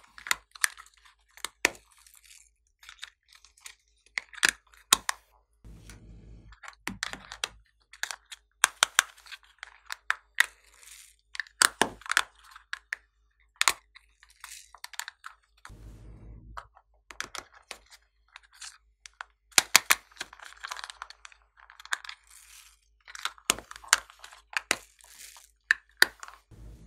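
Small plastic containers clicking open and being handled, with foam beads rattling and crackling as they are tipped out onto slime: an irregular run of sharp clicks and crackles.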